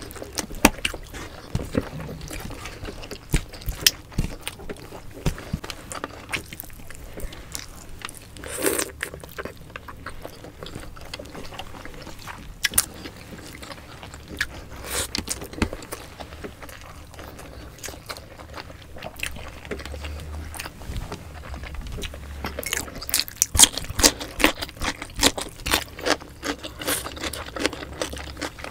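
Close-miked eating sounds of two people chewing pork belly adobo and rice with their hands: wet chewing, lip smacks and irregular clicks, busiest near the end.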